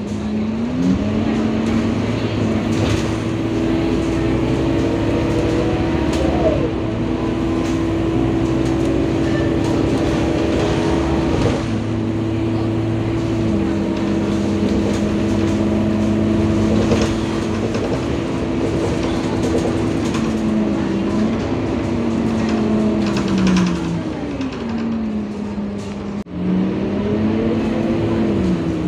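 Inside a Euro IV Scania city bus on the move: the diesel engine and drivetrain drone with a steady whine. The whine steps up in pitch about a second in, holds, drops back about halfway through, then dips and climbs again near the end as the bus slows and pulls away. A single sharp click comes shortly before the end.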